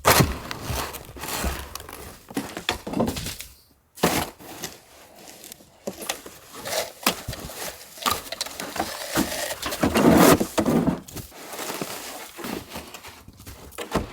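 Snow shovel cutting, crunching and scraping through deep, heavy snow in irregular strokes, with thuds of snow being pushed off. The sound briefly drops away a little before 4 s.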